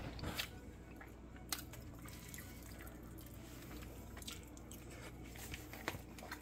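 Faint, scattered clicks and soft squishy noises of a metal fork picking at food in a plastic meal tray, over a low room hum.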